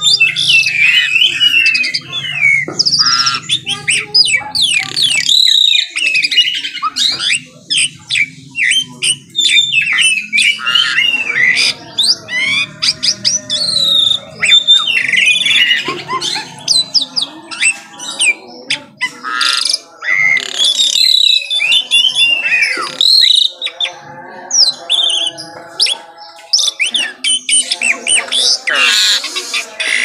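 White-rumped shama singing a rapid, varied song of clear whistles, up and down sweeps, chirps and harsh notes, with hardly a pause.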